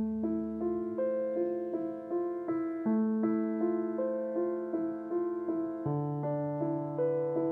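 Gentle piano background music with softly repeated broken-chord notes over a held low note. It starts suddenly, and the bass note shifts lower about six seconds in.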